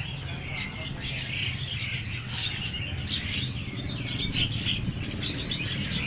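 Many caged songbirds chirping and trilling at once, a dense overlapping chatter of short high calls, over a steady low background rumble.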